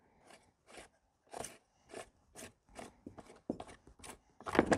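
Nuts being turned with a hand tool on a Stihl MS 180 chainsaw's sprocket cover: a series of short scraping clicks, about two a second, louder near the end.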